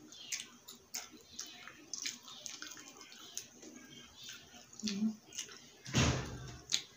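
Eating sounds from crispy fried chicken: wet mouth clicks and crackling from chewing, then hands tearing a piece off the crisp-skinned chicken, with a loud crackling tear about six seconds in.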